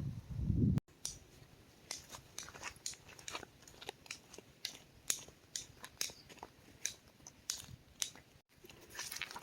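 Close-up chewing and biting of crunchy food: sharp, irregular crunches and clicks, several a second. It follows a brief low rumble that cuts off abruptly under a second in.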